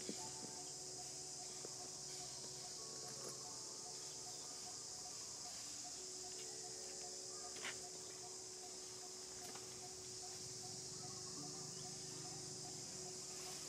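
Steady, high-pitched insect chorus from the surroundings, with a faint low hum beneath it and one sharp click a little past halfway.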